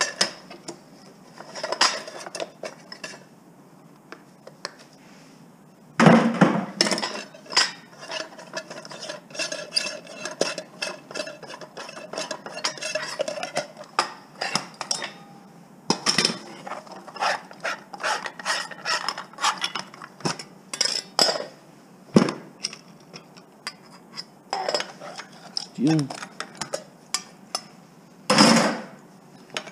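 Pieces of scrap metal being handled, knocked and dropped, clanking and clinking, with a few louder hits. After one hit a piece rings with a sustained metallic tone for several seconds.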